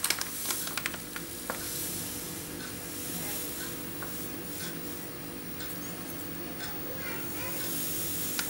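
A tablespoon scooping dry semolina from a paper bag: soft rustling and grainy scraping, with a few light clicks of the spoon in the first second and a half. A steady low hum sits underneath.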